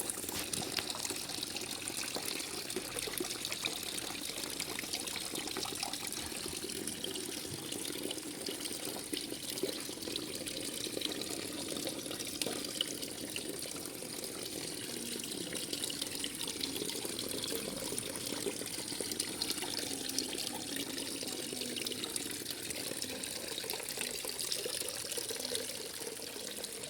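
Water trickling and splashing steadily in a small homemade tabletop waterfall fountain.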